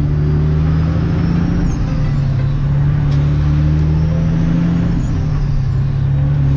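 Loaded dump truck's diesel engine running under way, heard from inside the cab. It has a steady low note that changes briefly about two seconds in and again near five seconds.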